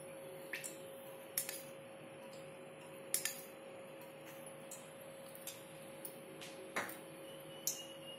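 A metal spoon clinking lightly against a steel cup and the rim of an aluminium pressure cooker as oil is spooned in: about eight scattered clicks, with a louder knock about seven seconds in, over a faint steady hum.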